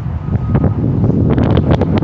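Wind buffeting the microphone, with one reversing-alarm beep from a machine on a demolition site about half a second in, and a quick run of clattering knocks in the second half.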